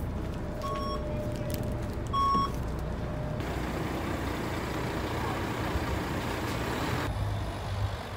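City bus running, heard from inside the cabin as a steady low rumble, with two short electronic beeps about a second and a half apart. From a few seconds in, a steady outdoor rushing noise takes over, and a low engine hum comes in near the end.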